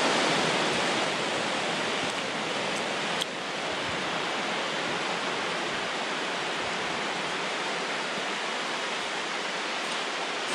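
Shallow sea surf washing up over wet sand at the water's edge: a steady rushing hiss.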